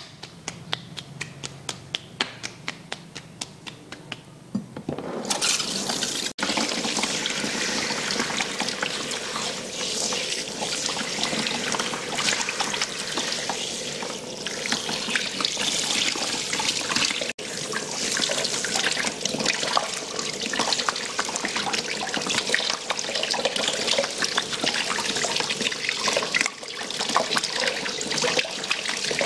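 Quick rhythmic taps of palms pressed together striking the head for the first few seconds. Then water from a handheld shower sprayer starts about five seconds in, spraying steadily onto hair and splashing into a shampoo basin. The water is the louder sound.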